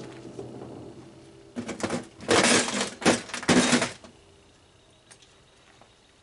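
Metal parts of a dismantled dehumidifier clattering and scraping as a piece is worked loose, in four short rattling bursts between about one and a half and four seconds in.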